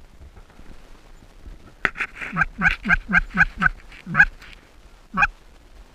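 Canada geese honking: a quick run of about seven clucking honks, each breaking sharply downward in pitch, then two single honks.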